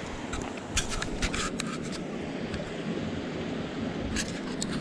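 Steady rush of flowing creek water, with a few short scrapes and splashes about a second in and again near the end as the landing net holding a brown trout is handled.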